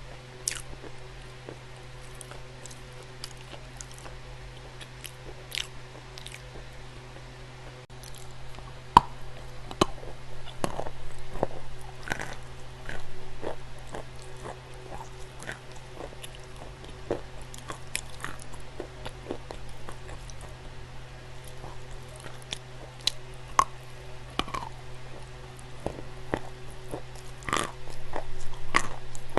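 Dry clay being bitten and chewed: irregular crisp cracks and crunches, thickening into denser crunching twice, over a steady low hum.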